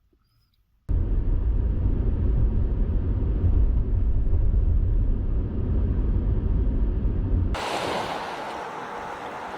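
Steady low rumble of a car's road noise, starting abruptly about a second in. Near the end it cuts to a quieter, hissier rushing noise.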